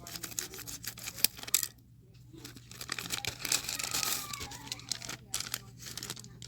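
Package wrapping being torn open by hand and crinkling: quick crackles and tears at first, a brief pause, then a longer, louder stretch of tearing and rustling.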